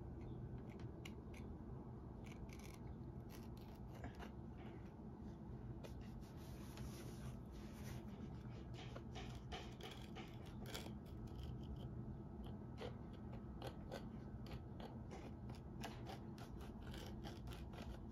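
A small hand blade scoring and scraping a leather insole on a shoe last. It makes faint, irregular crisp clicks and scratches, which come thicker in the second half.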